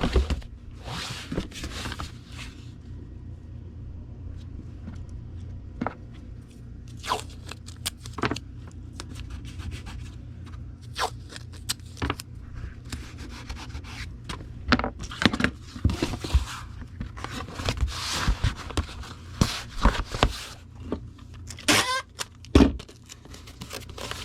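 A comic book being packed into a cardboard comic mailer: irregular cardboard scraping and rubbing with sharp clicks and taps, busiest in the last third, over a steady low hum.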